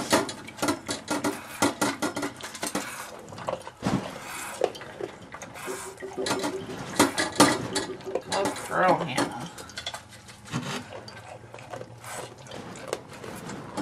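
Goat milk squirting into a metal pail in short irregular spurts during hand-milking, with light metallic clinks against the pail, as the last milk is stripped from the udder.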